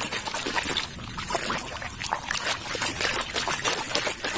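Water splashing and trickling as a muddy plastic toy is washed by hand, with many irregular small clicks and knocks throughout.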